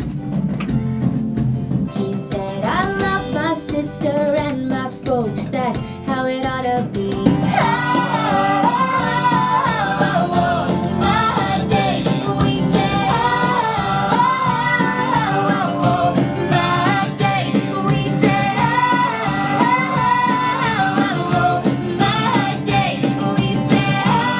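Upbeat, stompy pop song: voices singing over a steady band backing. The singing comes in about two seconds in and gets fuller and louder from about seven seconds.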